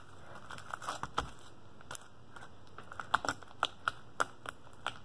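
Cloud slime being stretched and kneaded by hand, giving off scattered, irregular little crackles and clicks as it pulls apart.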